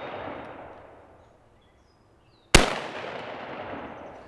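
The fading echo of a previous shot, then a single shot from a Krebs Custom VEPR 12 short-barreled 12-gauge semi-automatic shotgun about two and a half seconds in, its sharp report followed by a long echo that dies away over the next second and a half.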